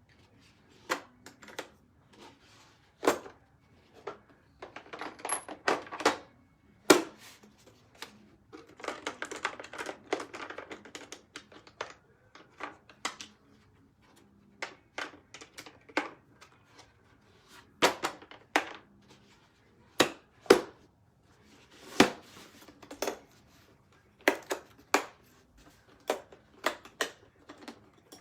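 Objects being handled and set down: scattered sharp clicks and knocks, with two stretches of rattling, one about five seconds in and a longer one about nine seconds in.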